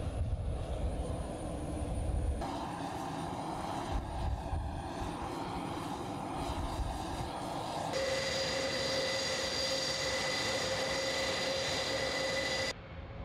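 Airbus A400M military transport's turboprop engines running. A lower rumbling engine noise shifts abruptly twice, then gives way to a loud steady whine over rushing propeller noise for the last few seconds, which cuts off just before the end.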